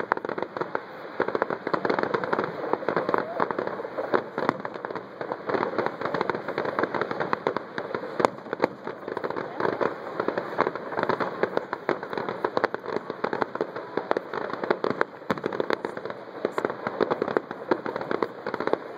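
Fireworks crackling: a dense, continuous stream of rapid pops, with a couple of sharper bangs a little before halfway and again near the end.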